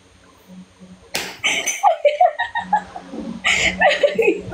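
People laughing hard: a sharp burst about a second in, then breathless, wavering laughs that pick up again near the end.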